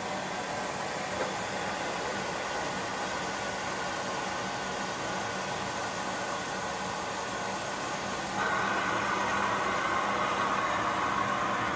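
Siemens Siwamat XL1250 washing machine running, a steady mechanical hum with noise over it. About eight seconds in, a louder, higher whirr starts and keeps going.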